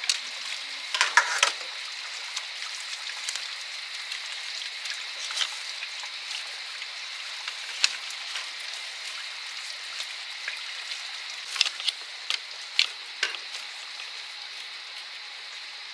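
Steady high-pitched hiss of evening insects, with scattered sharp clicks and knocks of sticks being handled: a louder clatter about a second in and a run of knocks near the end.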